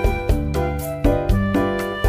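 Background music: an upbeat keyboard or piano tune over a regular beat.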